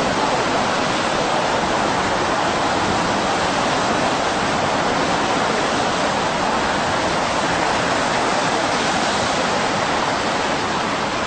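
Tsunami surge water rushing and churning in a steady, loud, unbroken rush.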